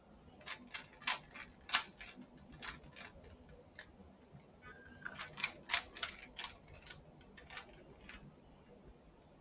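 Rubik's Cube being twisted by hand: irregular runs of sharp plastic clicks as the layers turn, a quick flurry in the first few seconds and another about halfway through, then a few last turns.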